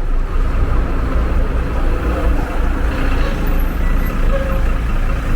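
A tour coach's diesel engine rumbling steadily close by as the coach pulls in to a stop.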